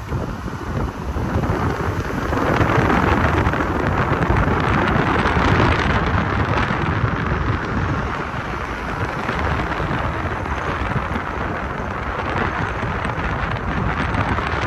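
A car driving, with a loud steady rushing hiss over a low rumble that swells about two seconds in.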